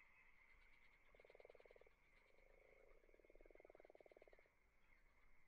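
Faint frogs croaking: two rattling, rapidly pulsed calls, a short one about a second in and a longer one about three seconds in, over a steady faint high-pitched hum.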